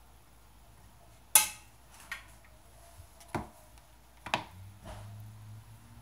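Five sharp clinks and knocks of a spoon and bowl against a stainless steel pot, the first the loudest.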